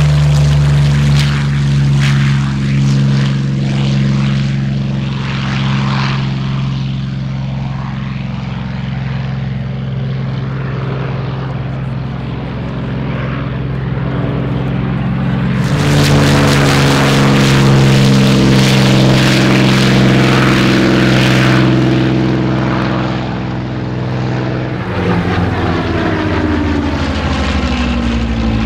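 Curtiss P-40E Kittyhawk's Allison V-12 piston engine running at full power, a loud steady drone as it takes off and climbs away. After a cut about halfway, the steady drone of V-12 piston-engine warbirds flying overhead, falling in pitch near the end as they pass.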